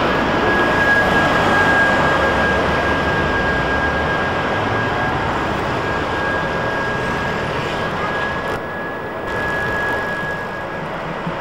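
Street traffic noise as a trolleybus pulls away from the stop. A steady high whine runs through it and stops near the end.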